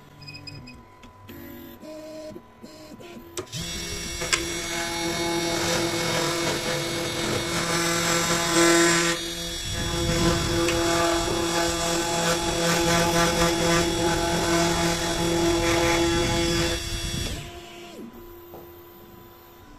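Small CNC trimmer's spindle turning an end mill as it cuts a thermoformed plastic sheet around a dental model: a steady machine whine with several fixed tones over the rasp of cutting. It starts about three and a half seconds in and stops a couple of seconds before the end.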